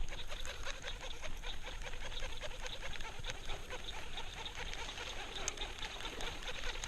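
A flock of birds calling, many at once, in a steady overlapping chatter.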